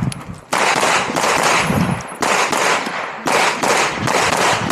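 Glock 47 9mm pistol firing fast strings of shots on a USPSA stage, the shots coming in quick bursts with short pauses between strings, each crack ringing on. A brief lull comes right at the start before the firing picks up again.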